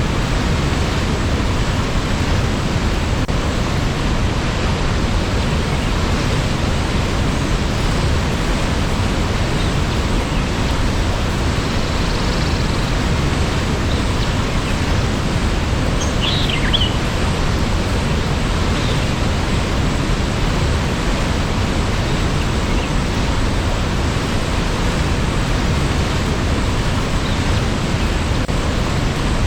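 Steady rush of falling water from a waterfall, an even unbroken roar. A brief high chirp is heard about halfway through.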